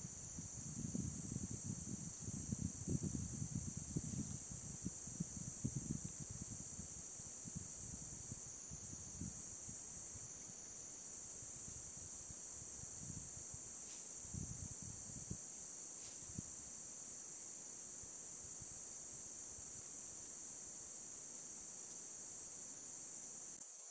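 A steady, high-pitched drone of insects such as crickets. Low rumbling noise comes and goes underneath for the first ten seconds or so.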